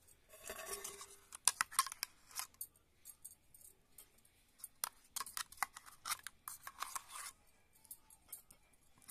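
Steel spoon scraping and clinking against a steel bowl and a glass bowl while thick green chutney is spooned onto boiled potatoes, in two spells of quick clicks and scrapes.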